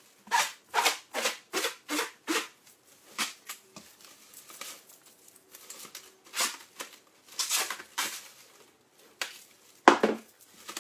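Plastic cling film being pulled off its roll and stretched over a metal mixing bowl: a quick run of rasping pulls, then scattered crinkling, with the loudest crackle near the end.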